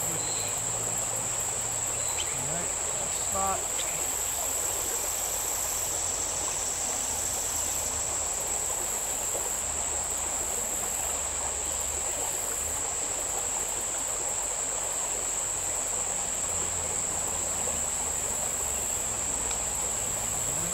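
Steady, unbroken high-pitched trilling of a summer insect chorus, such as crickets or katydids, over the low rush of the stream's running water.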